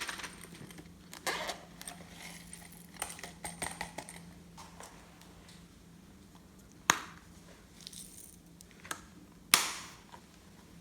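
Slime being handled and mixed: scattered crackles and sharp pops, with a busy stretch in the first few seconds and two louder snaps, about seven and nine and a half seconds in.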